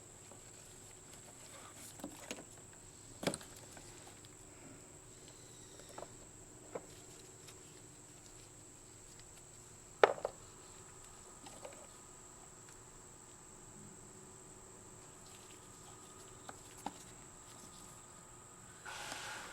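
A steady high-pitched insect trill, with scattered light clicks and knocks of hand work on the fuel lines, the loudest a sharp knock about ten seconds in.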